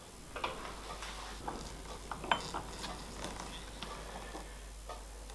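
Light metallic clinks and taps of steel tools and parts being handled, with one sharper ringing clink about two seconds in.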